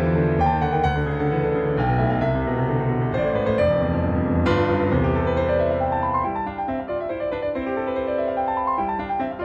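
Background piano music, with flowing runs of notes that climb and fall.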